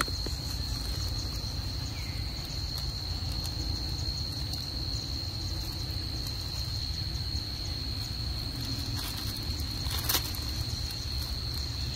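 A steady, unbroken high-pitched insect drone of one tone, over a low outdoor rumble, with a single short knock about ten seconds in.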